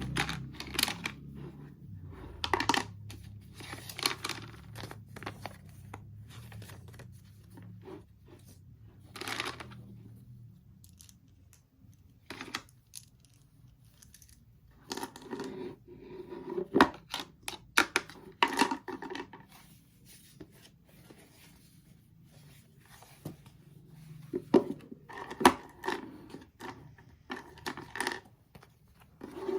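Packaging being torn open and handled, in short bouts of rustling and tearing with sharp clicks and small knocks, separated by quieter pauses.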